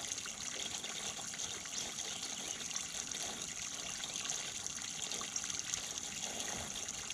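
Steady trickling of water.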